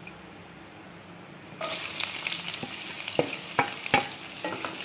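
Chopped onions dropped into hot mustard oil in a nonstick pan: a faint hiss, then about a second and a half in a sudden sizzle starts. Several sharp knocks and scrapes of a wooden spatula against the pan follow as the onions are stirred.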